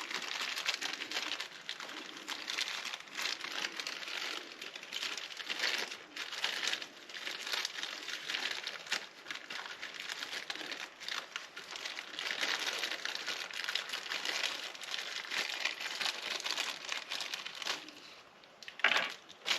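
Plastic packaging crinkling and rustling almost without pause as the small bags of monitor-arm hardware are handled and searched for a missing screw.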